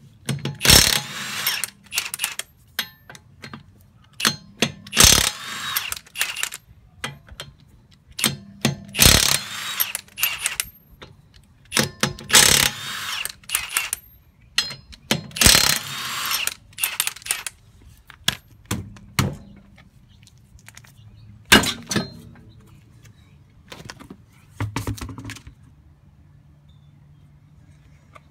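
Milwaukee M18 Fuel 1/2-inch cordless impact wrench hammering lug nuts loose, in about five bursts of roughly a second each, a few seconds apart, with metal clicks and clinks of the nuts being handled in between and a sharp knock later on.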